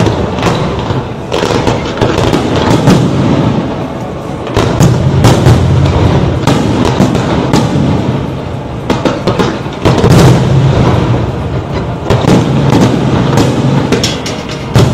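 Fireworks going off in quick succession, many sharp bangs and crackles, over loud music.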